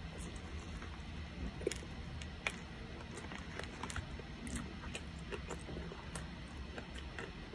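A person chewing a big mouthful of burger, with scattered soft wet mouth clicks over a faint steady low hum.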